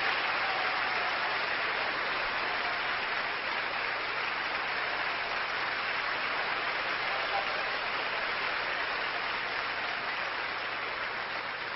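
Audience applauding after a tap-dance performance, the clapping slowly fading away.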